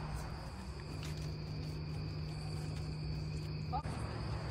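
Crickets chirping steadily in the background, over a low steady hum.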